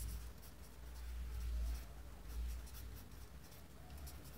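Marker pen writing on paper: a run of faint, short scratching strokes, with a low rumble underneath.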